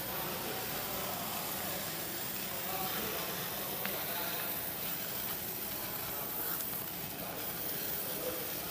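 A 50 W fiber laser marking silver: a steady sizzling hiss while the beam works across the metal.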